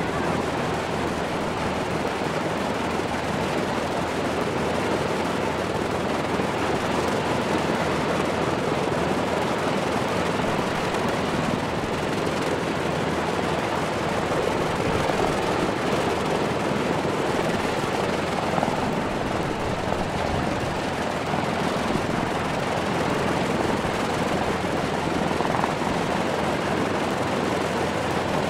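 Lockheed P-38F Lightning's liquid-cooled Allison V-1710 V-12 engines running steadily on the ground, propellers turning.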